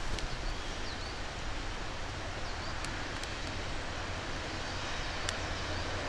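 Steady hum of traffic on a nearby road filling the forest ambience, with a few short, high bird chirps and faint ticks over it.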